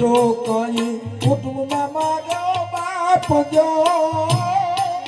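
Indian folk music instrumental introduction: a wavering melody line with vibrato, sliding up in pitch at the start, over regular percussion strokes.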